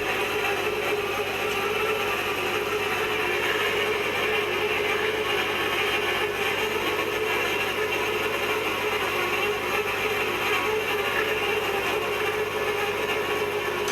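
Steady machinery noise that does not change: a constant low hum under an even whirring hiss.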